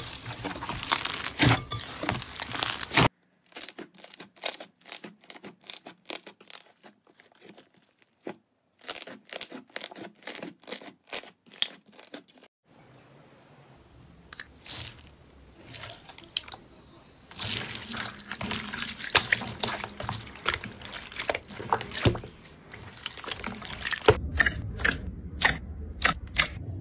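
Slime being squeezed, poked and pressed by hand, giving runs of sticky crackles and pops. These come as dense crackling in some stretches and as separate popping clicks in others, with abrupt cuts between clips.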